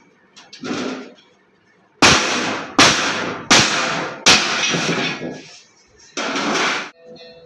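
Hammer blows on sheet metal: a lighter strike, then four heavy blows in an even rhythm under a second apart, and one more near the end, each with a short ringing decay.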